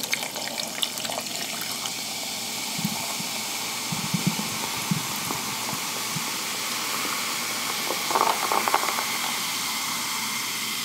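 Sparkling cranberry drink poured into a glass and fizzing: a steady hiss of bubbles, with a few small clicks.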